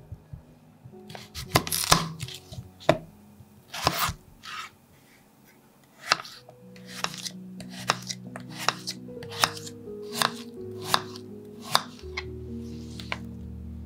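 Kitchen knife cutting raw peeled potatoes against a wooden cutting board: a few uneven cuts, a short pause, then a steady run of chops about one every 0.7 seconds.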